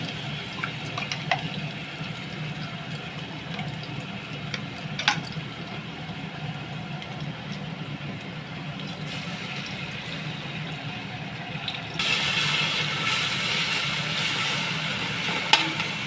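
Onions and ginger-garlic paste sizzling in hot oil in a cooking pot, with a few light taps of a utensil. About twelve seconds in, the sizzling suddenly gets louder and stays louder.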